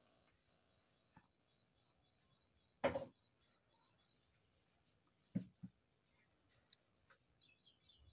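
Quiet room with a faint, steady high-pitched pulsing trill. A sharp knock comes about three seconds in, and two lighter knocks in quick succession about five and a half seconds in, while a paintbrush is dipped in a paint pot and worked over paper.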